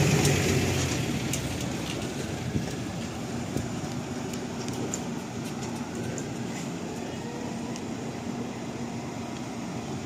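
A large diesel truck's engine running close by, fading over the first second or two as the truck pulls away. It leaves a steady, mixed rumble of the convoy's other trucks and cars idling and moving.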